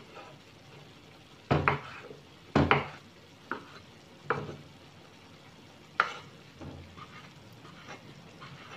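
Kitchen knife slicing through a soft fried sheet and knocking on a wooden cutting board, a handful of sharp, irregular knocks with a louder double knock about a second and a half in and another near three seconds.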